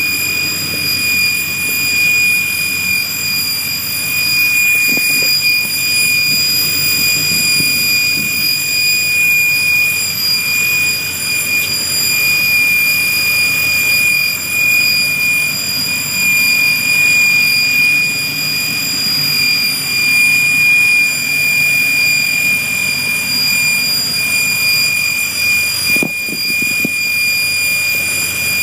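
Old GMC truck engine running steadily under the open hood, a low uneven rumble with a steady high-pitched whine over it.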